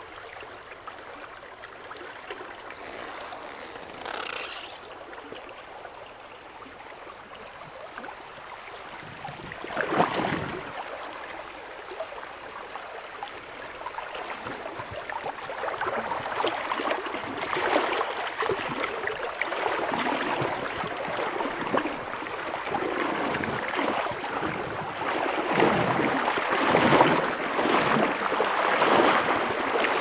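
River water flowing and rippling over shallows, getting louder through the second half, with a brief louder surge about ten seconds in.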